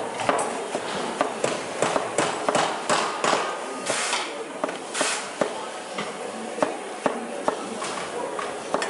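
A kitchen knife knocking on a cutting board in irregular strokes, two or three a second, as vegetables are cut. Two short scraping swishes come about four and five seconds in.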